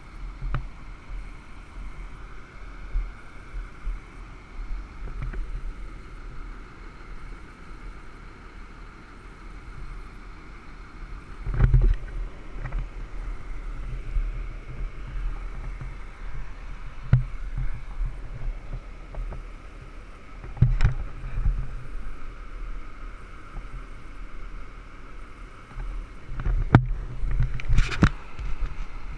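Handling noise from a body-worn camera as it swings and tilts: knocks and rubbing several times, the strongest near the middle and near the end, over a low steady rumble.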